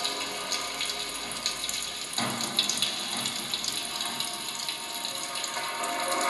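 A crackling, watery fizz of many small sharp pops over faint steady tones, with a fuller, lower rush coming in about two seconds in. It is experimental space-ambient sound art made with popping candy, a straw, a knife and altered kitchen utensils.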